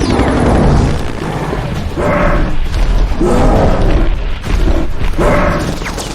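Loud action-film sound effects of a giant creature wrecking helicopters: a heavy low rumble and booming crashes, with four or five harsh bursts about every second and a half.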